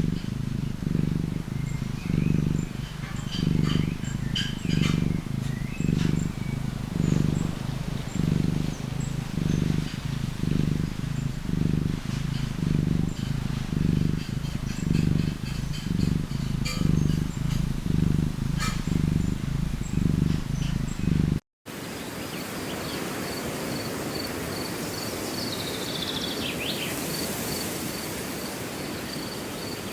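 A cat purring close to the microphone in steady pulses, about four every three seconds, rising and falling with its breathing. After a sudden cut comes outdoor ambience with a rapid, steady high chirping, like an insect, and a short falling call about twenty-seven seconds in.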